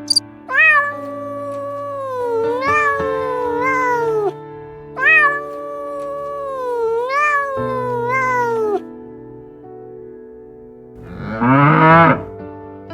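Domestic cat meowing in drawn-out, wavering calls, the same phrase heard twice, over steady background music. A louder call comes near the end.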